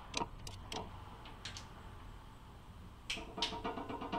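Torque wrench clicking faintly and irregularly as cylinder head bolts are tightened to 30 Nm in the second torque stage, with a quicker run of ratchet ticks about three seconds in.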